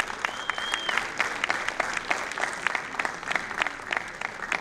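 Audience applauding steadily, a dense patter of hand claps, with a brief high whistling tone near the start.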